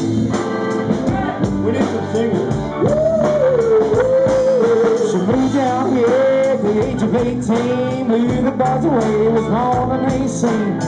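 Live rock band playing in a bar: electric guitar, bass, drums and keyboard, with a sliding, pitch-bending lead melody on top.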